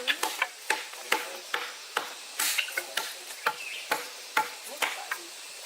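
An irregular run of sharp knocks and clicks, about three a second, with a few short chirps in between.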